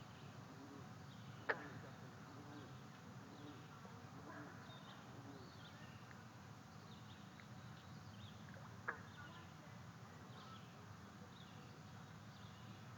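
Faint outdoor ambience of insects buzzing close to the nest-cam microphone, with scattered faint high chirps. Two sharp clicks stand out, one about one and a half seconds in and one near nine seconds.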